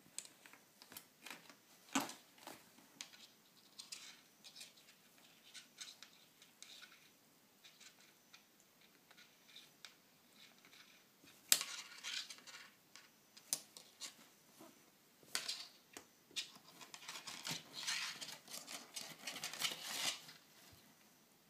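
A kitten playing with its claws against fabric and a wooden floor: scattered scratching, rustling and light clicks, with a few sharper knocks and a longer bout of scratching near the end.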